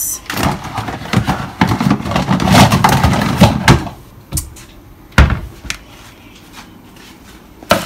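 Kitchen handling noise: rustling and clattering as things are moved about on the counter for about four seconds, then a few separate knocks, the loudest about five seconds in and another near the end.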